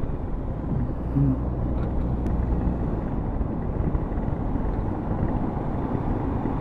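Steady low rumble of wind and the motorcycle running at road speed, heard through a microphone inside a Vemar Sharki modular helmet with the visor down.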